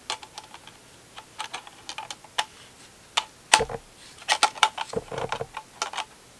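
Irregular clicks and taps of a lens being worked onto a Panasonic Lumix G7's Micro Four Thirds mount, with fumbling plastic-and-metal handling as the lens does not go on easily. The sharpest knock comes about three and a half seconds in.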